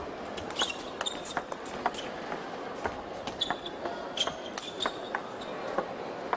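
Table tennis rally: the celluloid ball clicking sharply off the bats and the table at an irregular pace, with short high squeaks of shoes on the court floor.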